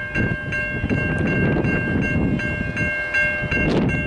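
Railway level crossing warning bells ringing, a high repeating ding about three times a second, sounding because a train is approaching. A steady low rumble runs underneath.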